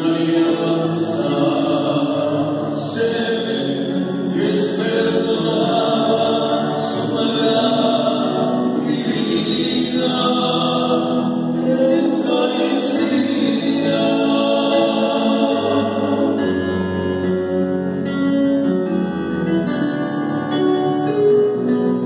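Church choir singing a hymn with keyboard accompaniment. The voices drop out about two-thirds of the way through and the keyboard plays on alone.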